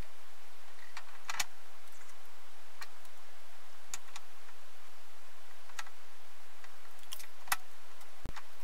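Light metallic clicks and taps as a four-jaw chuck is handled and fitted onto a mini lathe's spindle nose, with a short low thump near the end. A steady low hum runs underneath.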